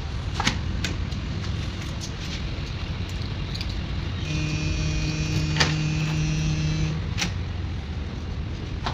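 Steady low hum of a ship's machinery, with a few sharp clicks from a cabin door's lever handle and latch as the door is opened. A steady pitched tone sounds for about three seconds midway.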